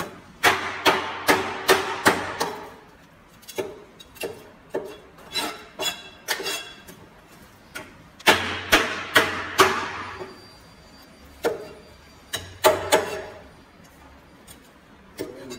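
Cleaver chopping through fish on a cutting board: sharp blows in quick runs of several strokes, with short pauses between runs, dying away a couple of seconds before the end.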